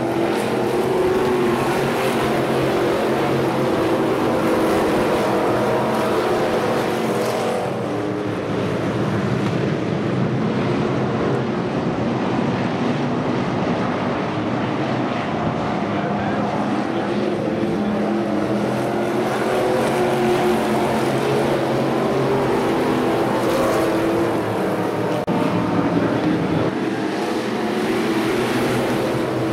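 A pack of dirt-track street stock race cars racing, their engines running hard together. The engine sound swells as the cars come past, fades for several seconds while they are on the far side of the track, then swells again.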